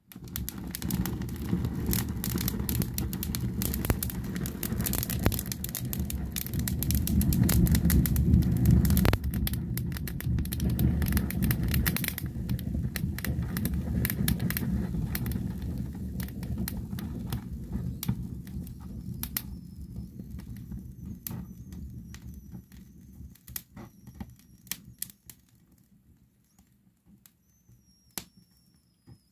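Burning Nordmann fir branches crackling and popping fast over a low rush of flame as the resinous needles flare up, then thinning out to scattered pops as the fire dies down. A faint high wavering whistle comes in over the last third.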